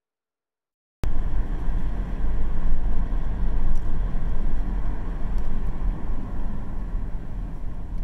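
Steady low rumble of road and engine noise from a car being driven. It cuts in suddenly about a second in, after dead silence.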